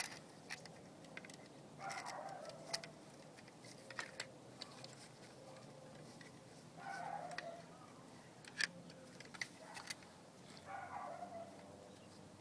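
Three animal calls, each about a second long, near two, seven and eleven seconds in, with scattered sharp clicks and taps between them.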